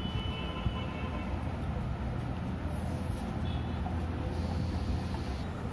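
A steady low rumble of background noise, with no clear foreground sound standing out of it.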